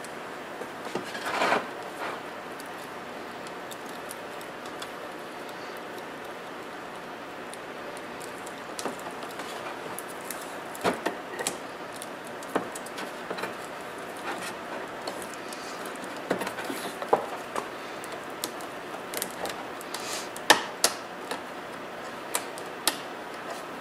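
Scattered clicks and short rustles of insulated wires and a roll of electrical tape being handled and wrapped around a wire joint, over a steady background hiss.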